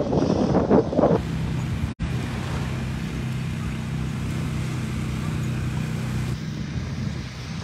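Motor vehicle engine running with a steady low hum, with a brief audio dropout about two seconds in. Voices are heard in the first second.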